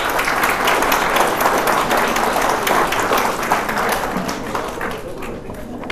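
An audience applauding, many hands clapping densely, dying down near the end.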